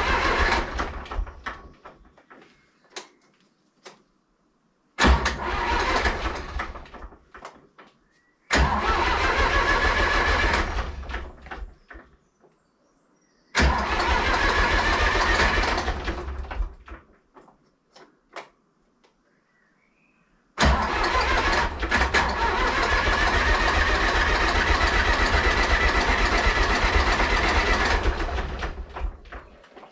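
Zetor 4911 tractor's diesel engine being cranked over on the starter motor in four separate bursts of a few seconds each, the last and longest about eight seconds, with pauses between. It turns over without catching: a long-parked engine that will not fire.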